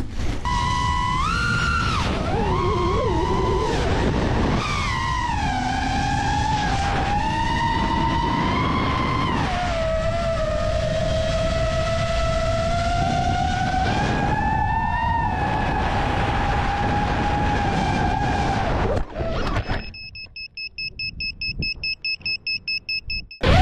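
FPV quadcopter motors whining, heard from on board, their pitch rising and falling with the throttle. About 19 s in the motors cut out as the drone crashes, and a high-pitched beeper then chirps in rapid, repeated beeps while the drone lies upside down.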